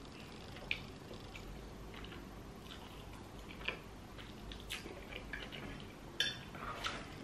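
Quiet chewing of a mouthful of spaghetti, with a few short scattered clicks from the fork working in the bowl.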